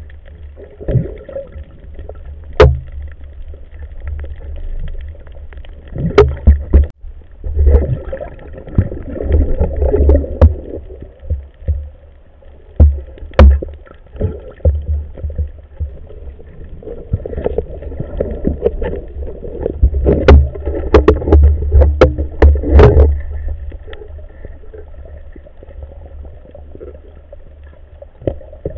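Muffled underwater noise through a submerged camera: a steady low rumble of moving water, broken by scattered sharp knocks and clicks from the spear and gear being handled. The knocks come most thickly about two-thirds of the way through.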